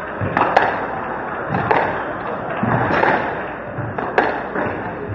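Squash ball being struck by rackets and hitting the walls during a rally: several sharp cracks, the loudest about half a second in and again about four seconds in, over a steady hall din.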